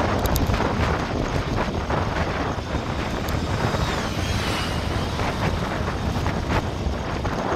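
Wind buffeting the microphone of a camera on a moving bicycle, a steady rushing noise with a deep rumble and a few faint rattles from the bike on the road surface.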